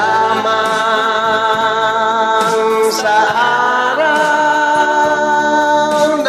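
Music: a Tagalog birthday song, with long held sung notes over the accompaniment. The pitch steps up about three seconds in and again about a second later.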